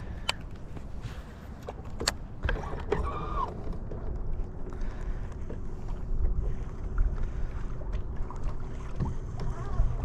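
Low rumble of wind and water around a small fishing boat, with a couple of sharp clicks and a faint steady hum through the middle.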